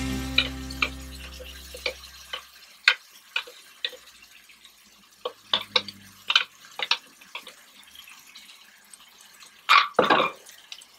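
Thick tomato purée dropping from a plastic blender cup into a wok, with a spoon tapping and scraping inside the cup: scattered wet plops and clicks, and one louder knock near the end.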